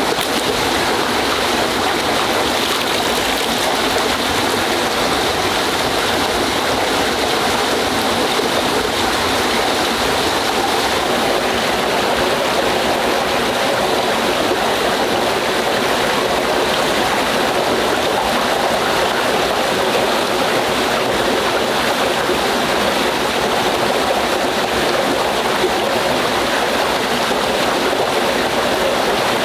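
Steady, unbroken rush of running water, like a forest stream.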